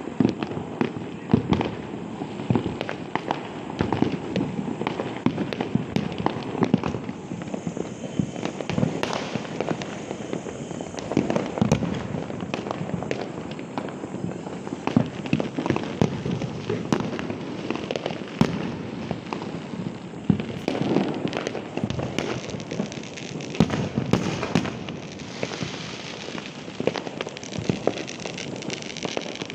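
Firecrackers bursting in a dense, unbroken run of rapid pops and cracks, with louder bangs scattered throughout.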